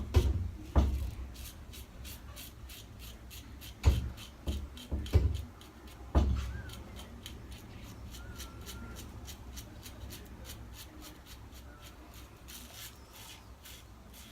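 Handling sounds during a wet shave with a safety razor: a handful of dull knocks and bumps in the first six seconds, with soft rubbing between.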